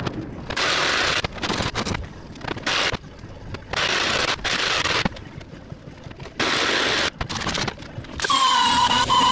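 Cordless jigsaw cutting a piece of wood in several short bursts, starting and stopping. Near the end comes a steady high whine.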